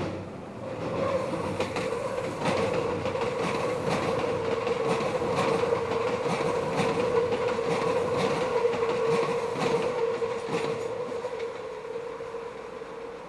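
Meitetsu electric train rounding a curve, its wheels squealing in one steady tone, with repeated clacks over the rail joints. The squeal sets in about a second in, and the train fades over the last few seconds.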